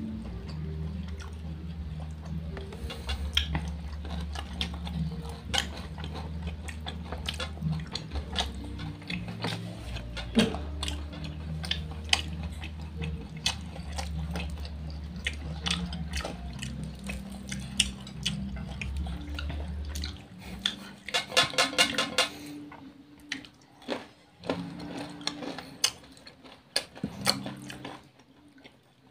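Close-up eating sounds: fried chicken torn and chewed by hand, wet mouth and finger sounds, with many small clicks and knocks of bones and fingers on plates. A steady low hum runs underneath and stops about two-thirds of the way through, soon followed by a brief buzzing sound.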